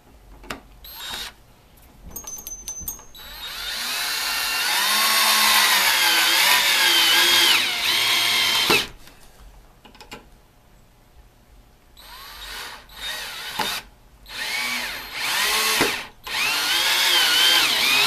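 Harbor Freight half-inch hammer drill driving long wood screws into 2x4 lumber. It gives a few short trigger taps, then one long run of about five seconds whose motor pitch wavers as the screw bites, then three shorter runs in the second half as the screws are sunk.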